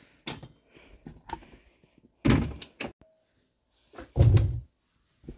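Knocks and thumps of fabric storage bins and plastic dog feeders being handled on a cubby shelf: a few light clicks, then two heavier thumps about two and four seconds in.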